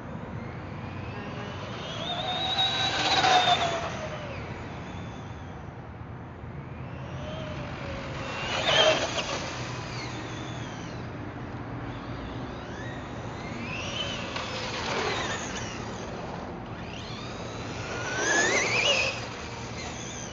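Traxxas Rustler VXL RC truck's brushless electric motor whining as the truck makes four fast passes on pavement, each rising then falling in pitch as it comes and goes. The loudest passes come about three seconds in, about nine seconds in and near the end.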